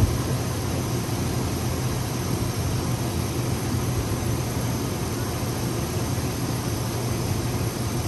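Chevrolet Silverado's Vortec gasoline engine idling steadily, heard from right over the open engine bay.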